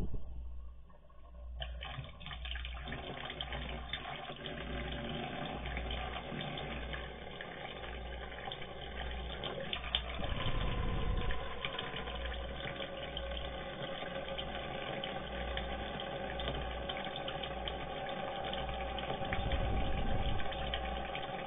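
Water pouring steadily from a water cooler's dispenser spout and splashing onto the floor, starting about two seconds in, as a cat holds the dispense button down. A faint ringing tone joins the splashing about halfway through.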